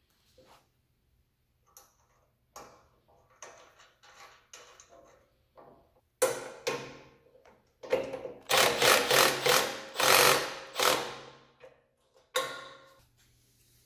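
Light metallic clicks and rattles of steel parts being handled, then a cordless impact driver running in several short bursts and hammering a bolt tight, starting about six seconds in, with one more brief burst near the end.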